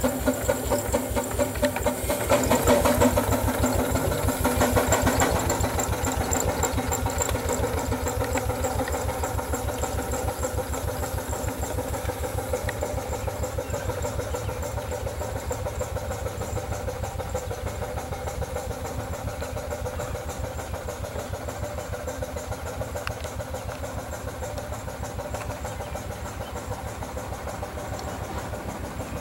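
5/8-scale Wood Brothers 22/70 steam traction engine under way, its steam engine beating in a fast, even rhythm. It is loudest for the first few seconds as it pulls off, then grows steadily fainter as it moves away.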